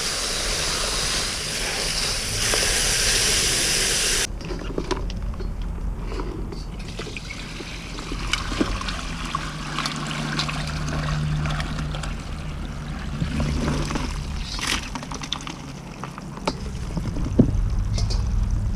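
Garden hose spray nozzle hissing as it jets water onto live crawdads in a plastic tub, cutting off abruptly about four seconds in. After that comes quieter water sloshing and pouring off as the tub is tipped to drain, with scattered clicks and knocks.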